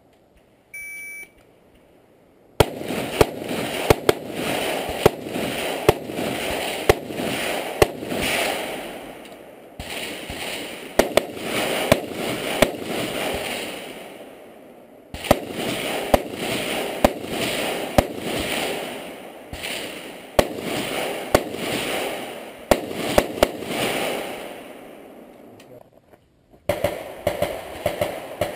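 An electronic shot-timer beep, then a long string of rapid semi-automatic rifle shots, one to three a second, each trailing off in echo, with a few short pauses. Near the end a new string of shots starts.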